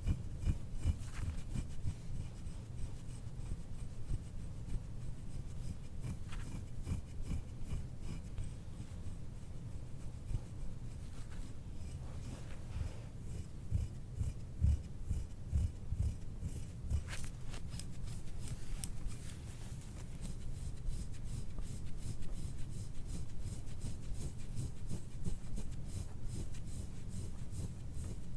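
Hands rubbing and pressing on skin during soft-tissue massage of muscle knots: an irregular friction rub with soft, dull thumps.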